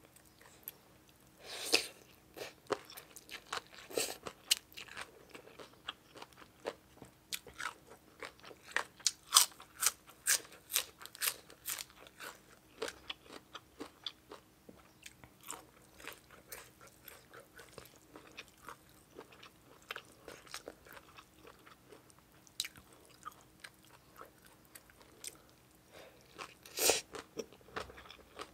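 Close-miked chewing and mouth sounds of a person eating spicy som tam (Thai papaya salad) with rice noodles: a dense run of short sharp clicks and wet smacks, with louder bites about two seconds in, around four seconds, in a cluster near the middle and once more near the end.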